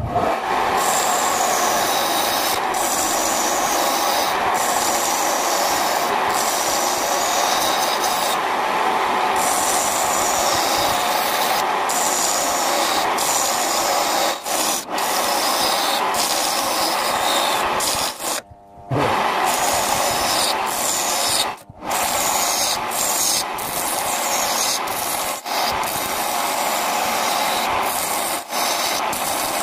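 Wood lathe spinning a block of coffee wood while a turning tool cuts and scrapes it, a steady rasping noise with a few brief gaps, the longest about two-thirds of the way through.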